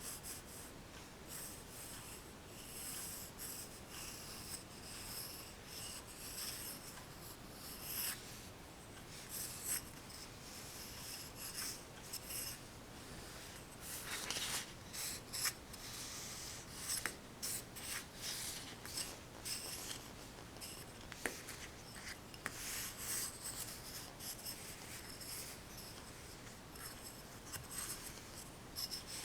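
Pencil scratching across paper in quick, uneven strokes, as in sketching and shading.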